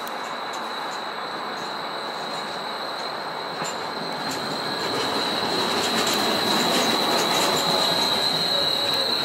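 Portland Streetcar low-floor tram, a Škoda 10T, rolling past on curved track, its wheels squealing against the rails in one steady high-pitched whine. The rumble of wheels on rail swells and the whole sound gets louder over the last few seconds as the tram draws alongside.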